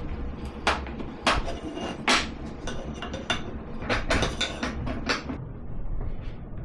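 Hand woodworking tools working wood: an irregular run of sharp knocks and short strokes, several close together at times, dying away near the end.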